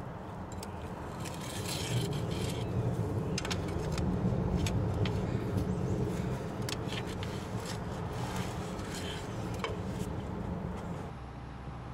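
A steady low rumble, louder through the middle, with scattered short scraping clicks from a metal scraper pressing a rubber lip seal back into the swing bearing's groove. The sound changes abruptly near the end.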